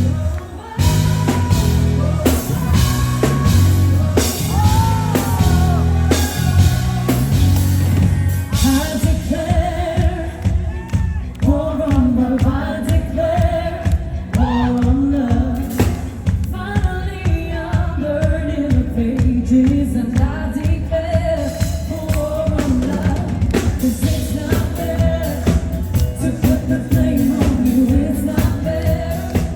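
Live pop song: a female lead singer over a full band, with a steady drum beat and heavy bass.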